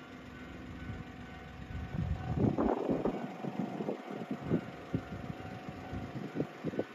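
A motor vehicle engine idling close by, with a steady hum and a swell of noise a couple of seconds in; several short knocks come near the end.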